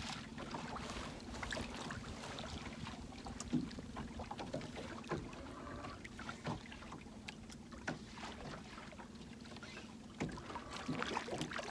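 Sounds aboard a small fishing boat: a steady low hum runs throughout, with scattered light knocks and clicks.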